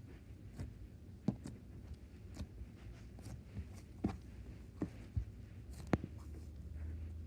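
Homemade cornstarch slime being handled, making faint, irregular little clicks and squishes, with one sharper snap about six seconds in.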